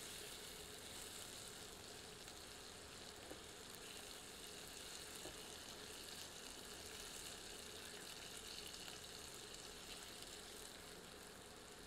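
Onions and ginger-garlic paste gently sizzling in mustard oil in a cast-iron kadhai on low heat as they are stirred. The sizzle is faint and steady.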